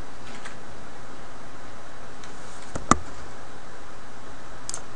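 A few faint computer keyboard clicks and one sharp key click about three seconds in, over a steady hiss.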